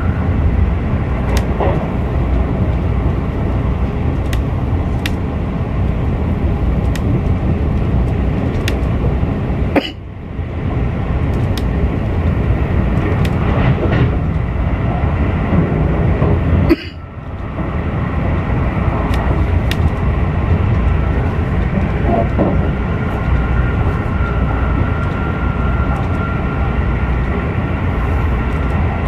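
Keisei Skyliner train running at speed, heard inside the carriage: a steady rumble of wheels on rail with a faint whine and faint ticks about every two seconds. Twice the noise drops suddenly and builds back up.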